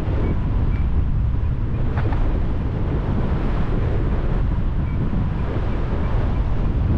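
Wind buffeting the microphone: a steady rough rumble, with one brief click about two seconds in.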